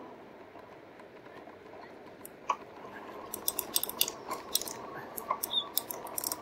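Rad Power Bikes RadMini fat-tire electric bike riding over beach sand: a steady low running noise with a faint steady whine, and irregular sharp clicks and rattles from the bike that come thicker from about three seconds in.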